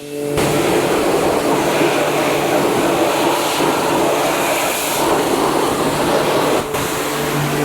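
Pressure washer running, a steady motor hum under a loud rushing hiss of spray, starting suddenly and cutting off right at the end.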